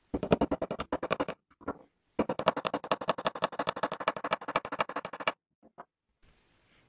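Small hammer tapping rapidly on the head of a small steel pin in a miniature sewing machine's mechanism: quick, sharp metallic taps in two runs, a short one and then a longer one of about three seconds, with a couple of single taps after.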